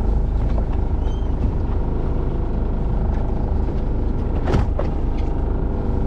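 Fishing boat's engine running steadily underway, a loud continuous low rumble, with a couple of short knocks about four and a half seconds in.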